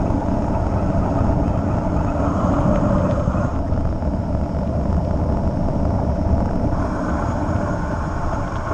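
Steady rush of wind buffeting the microphone of a mountain bike rider's camera during a fast downhill run, mixed with the rolling noise of knobby tyres on asphalt.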